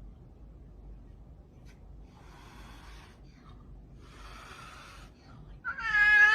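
Two breathy, wheezing breaths, then a cat starts a loud, drawn-out yowl near the end, with a slight fall in pitch.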